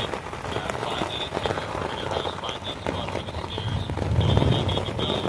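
Rain falling on a tent, a steady patter of drops on the fabric, with a low rumble swelling about four seconds in.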